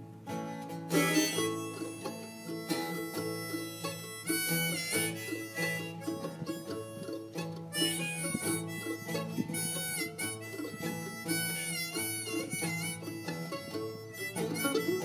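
Acoustic guitar strummed alongside a harmonica played from a neck holder, in an instrumental folk passage without singing.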